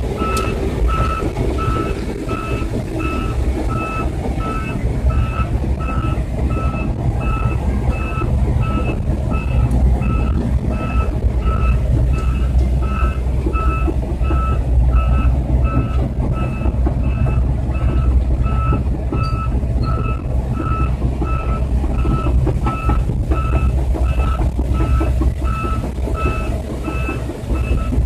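Volvo EC210 excavator travelling on its tracks: the travel alarm beeps steadily and evenly over the low, steady drone of the diesel engine and tracks.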